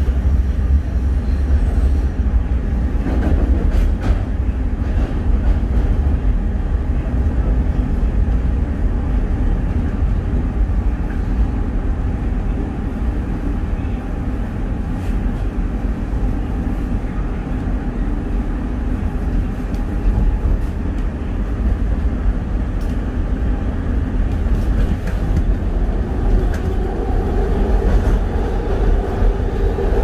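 SEPTA Market–Frankford Line El train running along elevated track, heard from inside the car as a steady, heavy rumble of wheels on rails. A humming tone joins near the end.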